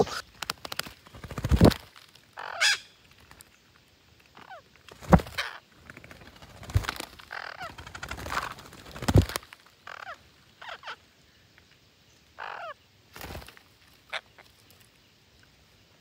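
Green parakeets giving short harsh squawks at irregular intervals, with a handful of soft thuds among them.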